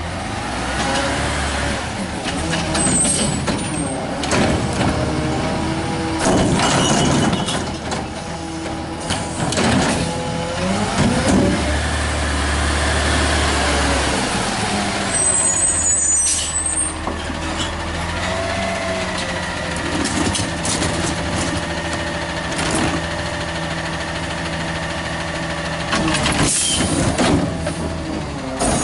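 Compressed-natural-gas engine of an Autocar ACX front-loader garbage truck running as the truck pulls up and stops, with several sharp air-brake hisses along the way. Near the end the truck's hydraulic Curotto-Can arm is working, lifting a cart.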